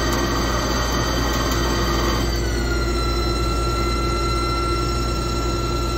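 Haas TL-1 CNC lathe running a facing pass under flood coolant: a steady spindle whine with several steady tones over a low hum and a hiss. About two seconds in, the whine steps down slightly in pitch and the hiss fades.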